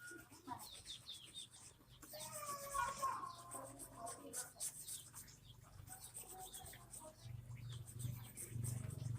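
Spices being grated by hand on a kitchen grater: a run of short, quick scraping strokes. A chicken calls for about two seconds, starting around two seconds in, and a low hum comes in near the end.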